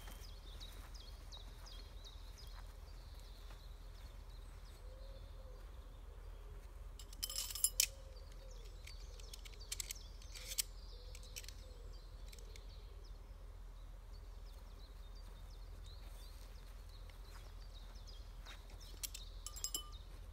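Quiet outdoor ambience: faint birdsong over a steady low rumble, broken by three short clusters of clicks and rustles, the loudest about seven and a half seconds in, another around ten seconds in and one near the end.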